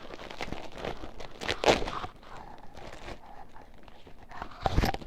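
Packaging being handled: irregular rustling and light clicks of plastic bags and packing, louder about a second and a half in and again near the end.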